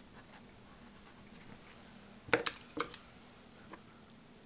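A quick cluster of light, sharp clinks of small tools against glass, a little over two seconds in. A fountain pen is being swapped for a paintbrush, which picks up ink from a small glass sample vial. Otherwise faint room tone with a low steady hum.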